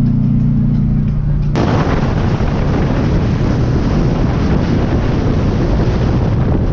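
Steady engine drone inside a car's cabin. About a second and a half in it cuts abruptly to loud wind buffeting on the microphone of a camera held outside a car moving at highway speed.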